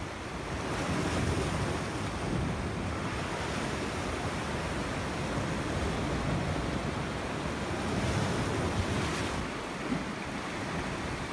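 Sea waves washing against shoreline rocks, with wind gusting across the microphone.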